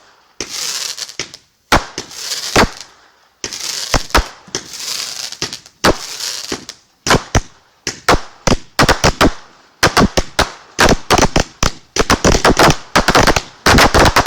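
Fireworks going off: sharp bangs separated by stretches of hissing crackle in the first half, then from about seven seconds in a rapid barrage of bangs, several a second, growing denser toward the end.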